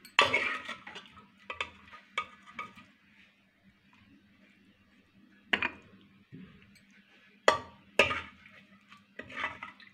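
Steel spoon clinking and scraping against a pressure cooker and a glass serving bowl as chole is spooned out and stirred. A run of small clinks comes at the start, then sharp single clinks about halfway and twice near the end.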